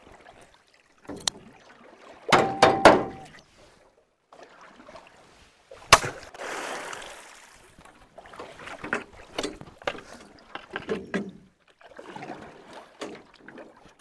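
Stream water splashing and sloshing as people wade and beat the water to drive fish toward a net. There is a loud burst of splashing about two and a half seconds in, a sharp splash near the middle that hisses away, and smaller splashes between.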